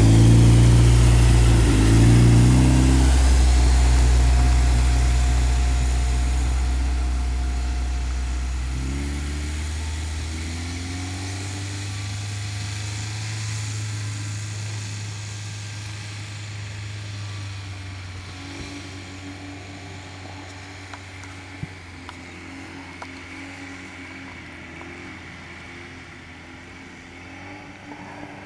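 Engine of a half-track snow rail, a tube-frame buggy on rear tracks, running under load as it pulls away through deep snow. Loud at first, its sound fades steadily into the distance, with a change in the engine note about nine seconds in.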